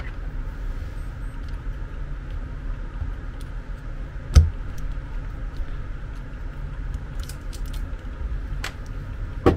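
Small metal parts of a bed linear actuator's brushed motor being handled and picked at with a thin tool: light clicks and scrapes, with a low knock about four seconds in and another near the end, over a steady low hum.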